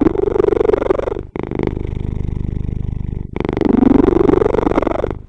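Domestic cat purring, a fast pulsing rumble that swells and fades with its breathing: two louder stretches of about two seconds each, with a softer stretch between.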